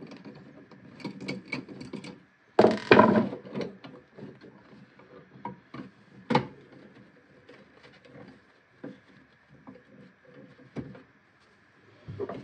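Handling noise from an old electrical outlet being worked out of its metal wall box by a gloved hand: scattered clicks, knocks and rubbing. There is a louder rustling scrape about three seconds in and a sharp click around six seconds.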